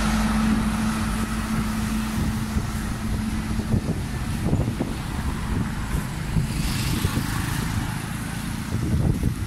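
Tour coach engine running as the coach moves off, a steady low hum that ends about three and a half seconds in. Street traffic follows, with scattered short knocks.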